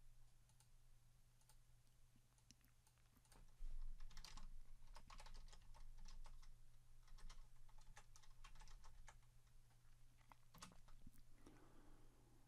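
Faint computer keyboard typing: a run of quick keystrokes as a terminal command is entered, thickest in the middle, over a low steady hum.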